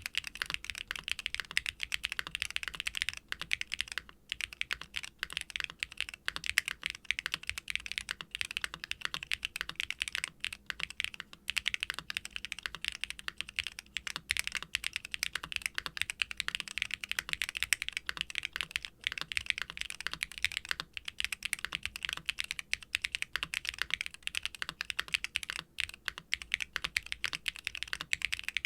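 Continuous fast typing on an aluminium-cased Hex80 mechanical keyboard with Gateron Orchid HE linear switches (all-POM housings and stem, light 30 g springs), a carbon fibre plate, no case foam and ABS keycaps. It is a dense, unbroken stream of keystroke clacks with a bottom-out that isn't as harsh as most switches.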